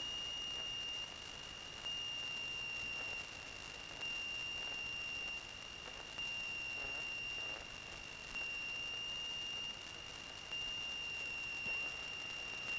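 A steady high-pitched electronic tone in the cockpit headset audio, over a faint hiss that steps up and down in level about every two seconds.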